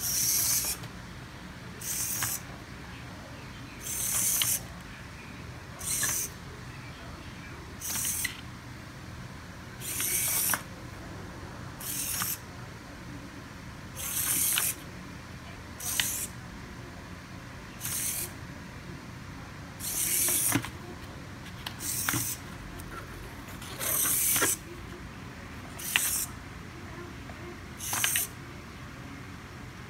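Two hobby servo motors whirring in short bursts about every two seconds, some bursts longer than others, with sharp clicks, as they swing the toothpick legs of a cardboard walking robot.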